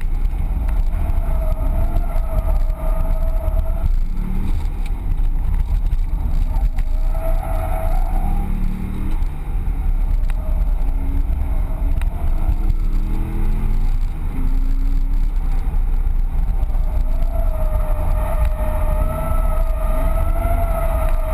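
Corvette Z06 V8 revving up and down under hard driving, heard inside the cabin as a loud, heavy rumble, with tyres squealing in a wavering tone as the car drifts, briefly early on and again through the last few seconds.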